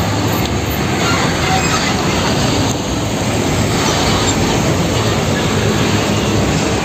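Heavy fuel tanker truck, a UD Trucks Quester tractor with a multi-axle tank trailer, driving past at close range: steady loud diesel engine and tyre rumble.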